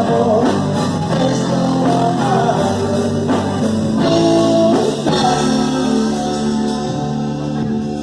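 A rock band playing live, with a voice singing over guitar and held chords.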